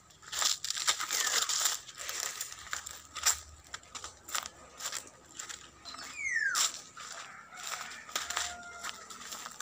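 Footsteps crunching irregularly through dry leaves, twigs and brush. A short falling whistle comes about six seconds in.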